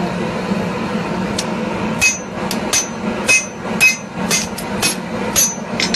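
Hammer blows on red-hot steel on an anvil: about a dozen strikes in an uneven rhythm starting about a second in, several with a short metallic ring. A steady low hum runs underneath.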